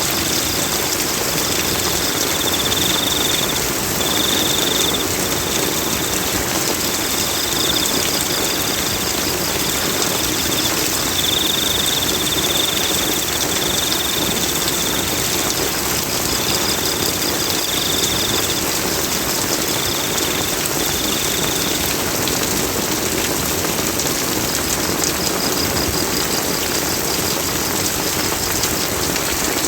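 Steady rain falling, with a high-pitched chirping call in short repeated runs through the first two thirds. A fainter, higher trill comes back every several seconds.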